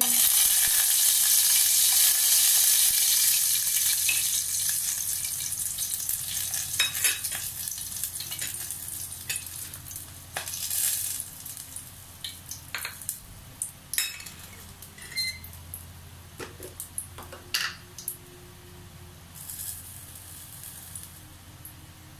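Whole spices dropped into hot oil in a metal pot, sizzling loudly at once. The hiss fades over several seconds into scattered crackles and pops.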